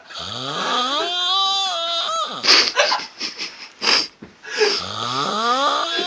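Snoring with a moaning tone on the breath that rises in pitch over about a second and then holds, twice, with a few short, sharp breathy bursts between the two.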